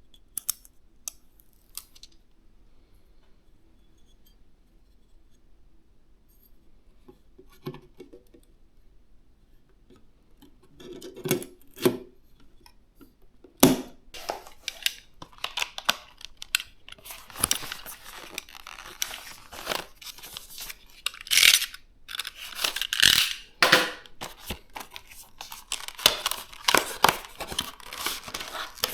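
Hands handling PC parts and their packaging: a few scattered clicks, then from about halfway a busy run of sharp clicks, taps and rustling.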